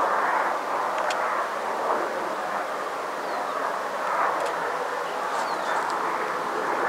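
Boeing 777 jet engines running at taxi power as the airliner rolls slowly, a steady rushing noise. A few faint short high chirps sound over it.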